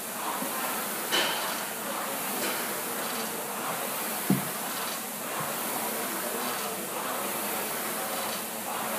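Air rowing machine's fan flywheel whooshing, surging about once a second with each hard stroke. A sharp knock comes about a second in, and a louder low thud a little after four seconds.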